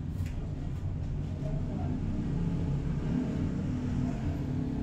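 Steady low rumble of a running motor, even and unbroken.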